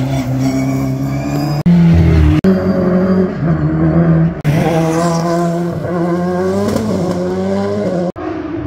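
Race car engines running and revving in several short edited clips joined by abrupt cuts; the engine pitch holds steady in some clips and rises and falls in others.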